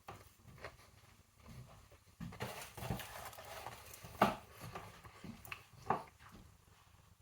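Quiet sounds of someone eating hot food: chewing and breathing, with a few light clicks and knocks, the sharpest about four seconds in.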